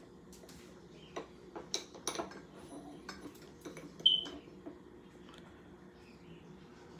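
Light clicks and clinks of dismantled air-rifle parts being handled on a counter, with one sharper metallic clink about four seconds in.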